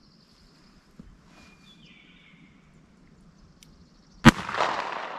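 A single shot from a Smith & Wesson Model 15 .38 Special revolver with a 4-inch barrel, firing a 158-grain round-nose lead .38 Special round, about four seconds in, followed by a long echo trailing off.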